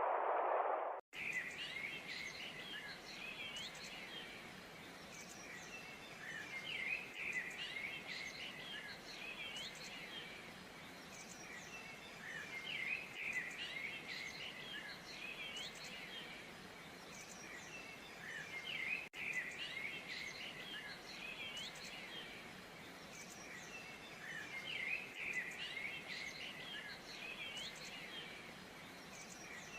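A chorus of many songbirds chirping and trilling continuously over a faint steady hiss. About a second in, a louder rushing sound like falling water cuts off abruptly.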